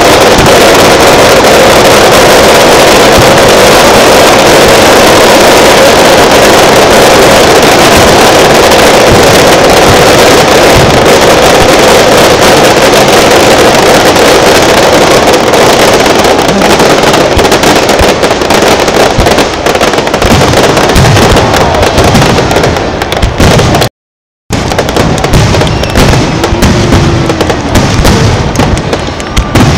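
Fireworks display: a dense rapid-fire barrage (starmine) of bursts and crackling, loud enough to hold the recording at full level. After about twenty seconds it thins into separate shell bursts, with a short dropout near the end.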